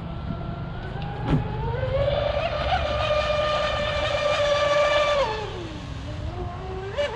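Brushless electric RC speedboat motor whining at speed. The high whine climbs about a second in and holds steady at full throttle. Just after five seconds it drops away as the throttle eases, then climbs again near the end, over a low steady rumble.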